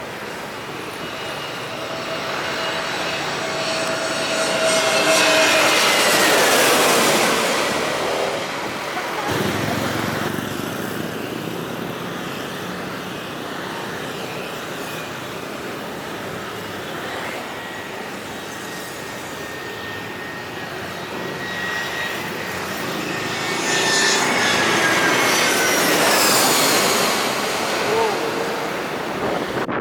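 Two Airbus A320 airliners on landing approach, one after the other. Each jet's engine noise swells loud as it passes, with a whine that falls in pitch as it goes by.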